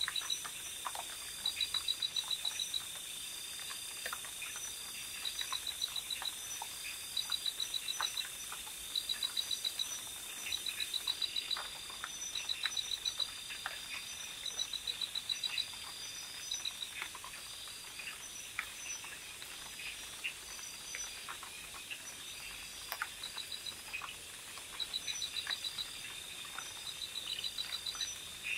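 Night insects, crickets by the sound of it, chirping in quick pulsing trills about once a second over a steady high-pitched drone. The chirping breaks off for several seconds past the middle and then starts again, with faint scattered clicks throughout.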